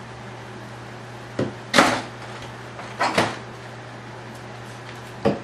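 A handful of short knocks and clatters as parts and tools are handled and set down on a workbench: a light one and then the loudest about a second and a half in, a close pair around three seconds, and one more near the end, over a steady low hum.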